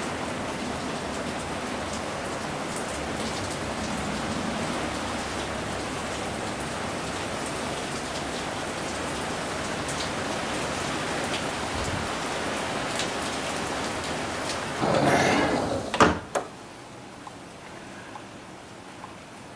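Steady rain falling on a swimming pool and wet patio. About three-quarters of the way through, a sliding glass door rumbles shut and ends in a sharp knock, after which the rain is quieter.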